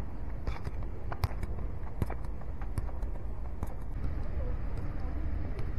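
Football knocked from foot to foot on a dirt surface during a close-control dribbling drill: sharp short touches about every three-quarters of a second, over a steady low rumble of outdoor background noise.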